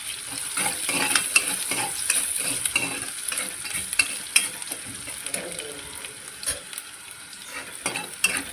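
Cumin, green chillies and crushed ginger sizzling as they fry in a pan while being stirred, with a spoon scraping and clicking against the pan now and then.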